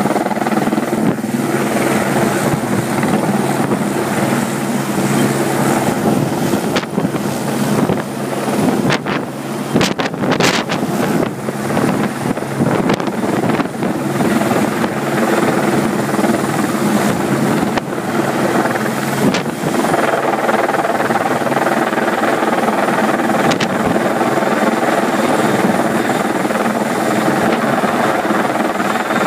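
Eurocopter AS355N twin-turbine helicopter running steadily, its main rotor making a constant, even drone.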